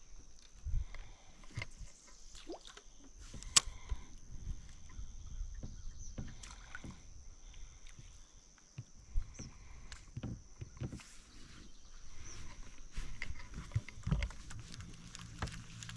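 Scattered light knocks and thumps of gear being handled in a small fishing boat, over a faint steady high-pitched tone.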